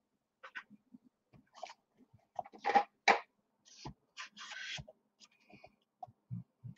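Paper and chipboard being folded and handled: scattered rustles and light taps. Two sharper, louder paper sounds come about three seconds in, and a couple of soft dull knocks near the end.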